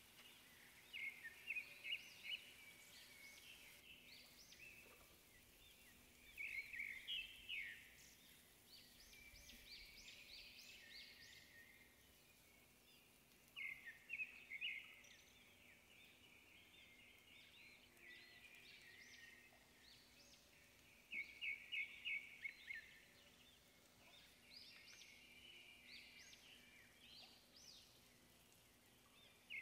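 Faint bird song: short phrases of quick, high chirping notes, repeated every several seconds over a low, steady background hum.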